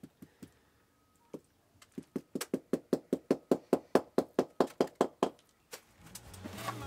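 A tile being tapped down into a bed of fresh mortar with a hand tool: a few single knocks, then a fast, even run of about six knocks a second for three seconds. Music fades in near the end.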